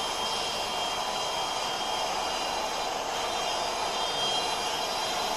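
Steady whirring and hiss of a gauge 1 model train running along the track.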